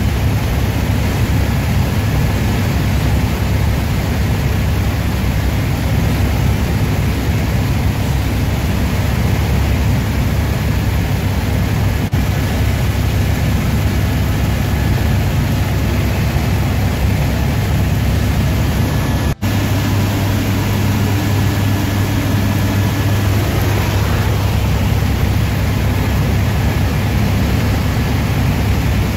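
Helicopter in flight, its engine and rotor making a loud, steady drone with a strong low hum and a faint high whine. The sound breaks off for an instant about nineteen seconds in.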